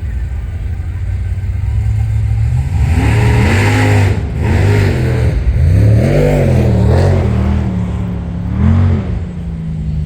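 Drag-racing car engine revved again and again, its pitch rising and falling in about five blips from about three seconds in until near the end, over a steady low engine rumble.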